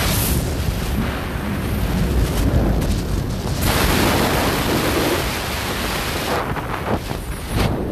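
Wind buffeting the microphone of a moving motorcycle: a loud, rumbling rush of noise.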